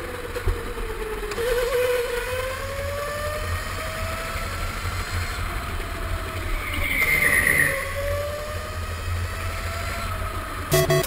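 Go-kart driving, heard from on board. Its motor note rises and falls slowly with speed through the corners, over a steady low rumble.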